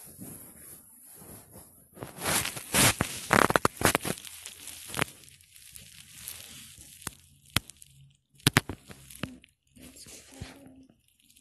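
Rustling and crackling handling noise, loudest from about two to five seconds in, then a few sharp clicks and some softer rustles.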